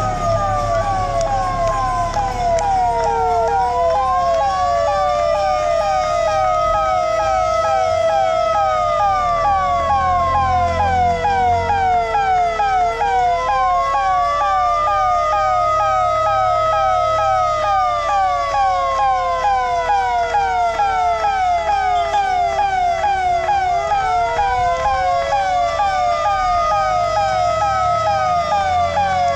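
Fire engine siren sounding continuously with two tones at once: a slow wail rising and falling about every ten seconds over a fast sweeping yelp of about four sweeps a second.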